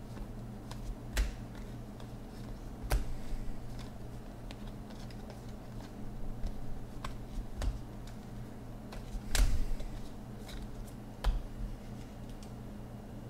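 Cardboard trading cards being handled: flicked through and tapped down onto stacks, giving a string of separate sharp clicks and snaps, the loudest a little after two-thirds of the way through. A steady low hum runs underneath.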